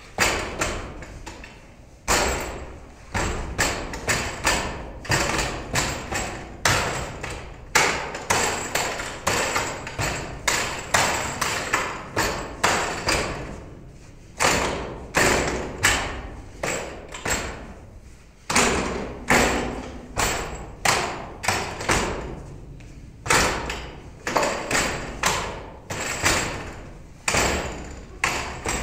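Wooden dummy (mook yan jong) being worked: hands and forearms knocking sharply against its wooden arms and trunk, with kicks against its leg. The knocks come in quick runs of about two a second, broken by brief pauses.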